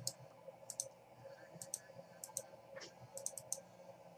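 Computer mouse buttons clicking: short, sharp, faint clicks, many in quick pairs, coming every half second to a second, over a faint steady hum.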